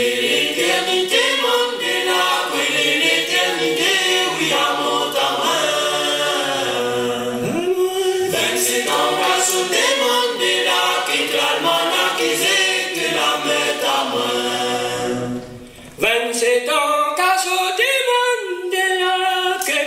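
Vocal music: a choir singing a cappella, several voices in close harmony, with a brief break about three-quarters of the way through before the singing comes back in.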